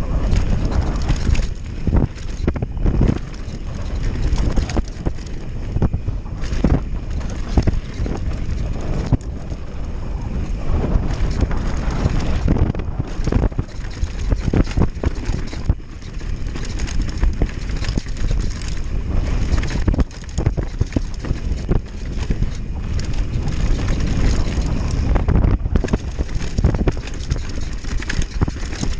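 Downhill mountain bike descending a dirt trail at speed: heavy wind buffeting the microphone, with frequent knocks and rattles from the bike and tyres over bumps.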